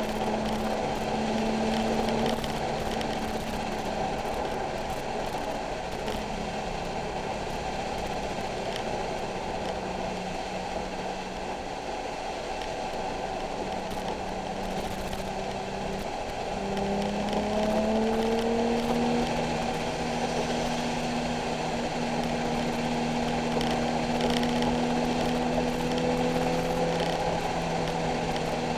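Nissan 370Z's 3.7-litre V6 running at speed on track over a steady hiss of tyres and spray on a wet surface. The engine note holds for a long stretch, drops briefly about two-thirds of the way through, then climbs quickly as the car accelerates and holds at the higher pitch.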